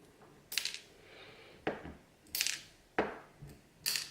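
Sharp little metallic clicks and taps, about five spread over four seconds: small metal parts of an old Ruko cam lock knocking and dropping onto a hard surface as the lock is taken apart to get at its pins and springs.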